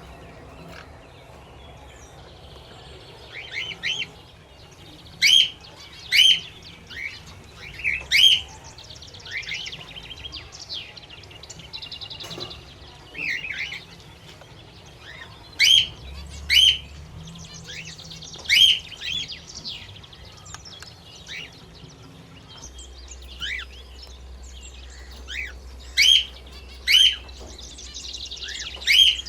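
Small pet parrots, budgerigars and a cockatiel, chirping: loud sharp chirps repeated at irregular intervals over soft continuous warbling chatter.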